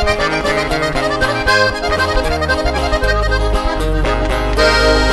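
Instrumental break of a live sierreño band: an accordion plays a fast run of short notes over strummed guitar and a steady bass line.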